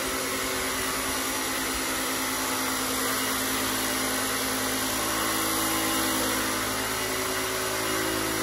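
Battery-powered Ryobi ONE+ 18V fogger running steadily as it sprays disinfectant mist over an ambulance stretcher, a constant motor-and-pump hum.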